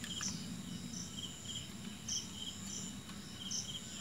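Crickets chirping in a steady repeating rhythm over a faint low hum.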